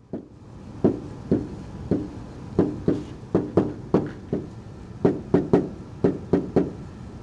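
Pen tapping and knocking against the surface of a SMART interactive whiteboard as words are handwritten on it, in irregular taps about two to four times a second.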